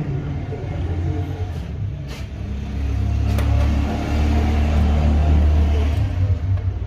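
Single-cylinder diesel engine running with a steady low rumble, growing louder about three seconds in.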